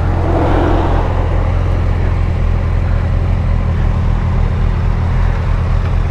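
Motorcycle engine running at a steady speed, its pitch unchanging, under a constant rush of wind noise.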